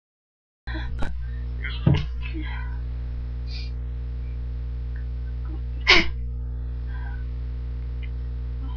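A person sneezing, half-stifled, twice: a short burst about two seconds in, then a louder, sharper sneeze about six seconds in. A steady electrical hum runs underneath.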